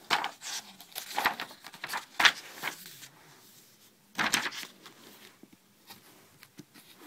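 Sketchbook paper being handled and its pages turned: several short, loud rustles and flaps, with a quieter stretch near the end.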